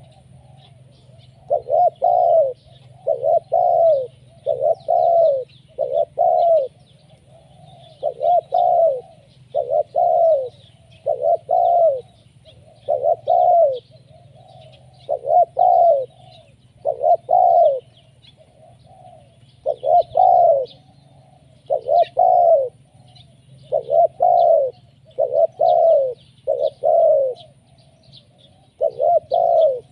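Spotted dove (tekukur) cooing over and over: loud, short arched coo notes in runs of two to four with brief pauses between runs. Faint high chirps of small birds and a low steady hum sit underneath.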